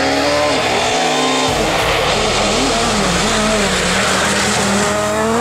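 Rally car engine revving hard, its pitch climbing, dropping and climbing again with throttle lifts and gear changes. Near the end a Peugeot 207 S2000 accelerates close by.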